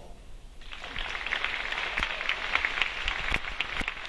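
Audience applauding, starting about half a second in and building into steady clapping.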